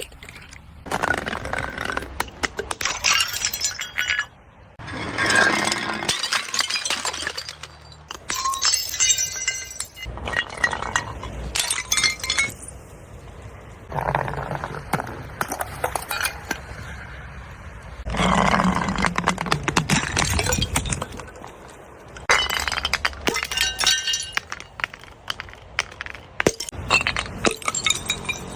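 Glass bottles being smashed and crushed, the shards crunching and clinking with a bright ringing, in about eight separate bouts.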